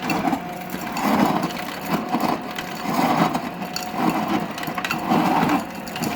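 Whirlpool Gold refrigerator's door ice dispenser running on the crushed-ice setting, the crusher grinding ice over a steady motor hum, swelling about once a second as chunks of ice drop out.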